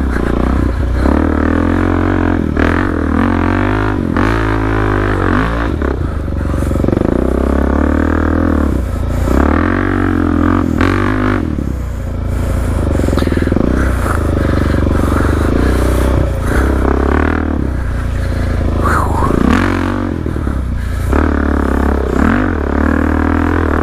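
Suzuki DR-Z400's single-cylinder four-stroke engine running through an aftermarket Black Widow exhaust, revving up and down again and again as the dirt bike is ridden hard.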